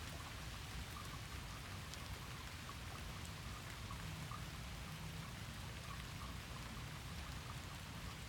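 Steady rainfall: an even hiss of rain with small drips scattered through it.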